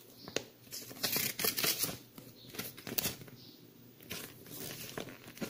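A folded paper user-guide leaflet being handled and unfolded: irregular rustling and crinkling of paper, with small sharp clicks and taps.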